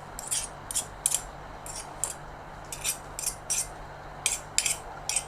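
Cutlery clinking and scraping against a dish while eating: about a dozen short, sharp clicks at an uneven pace.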